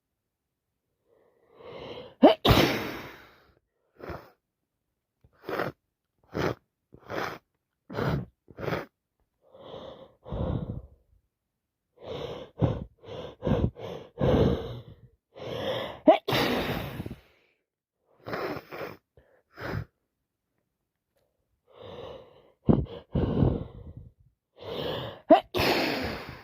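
A woman with a heavy cold sneezing: three loud, sudden sneezes, one near the start, one in the middle and one near the end. Short breaths come between them.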